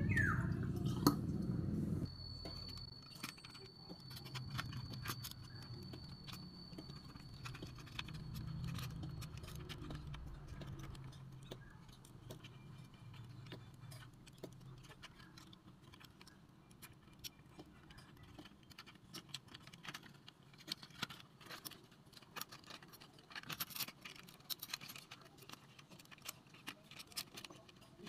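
Scattered light clicks and taps of fingers handling a plastic RC bulldozer body, its small parts and wiring. A low rumble in the first two seconds cuts off suddenly, and a faint low hum fades out by about ten seconds in.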